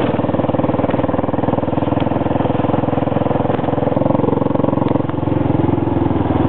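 Royal Enfield Bullet's single-cylinder four-stroke engine running steadily under way, its exhaust beats coming close together in a fast, even rhythm.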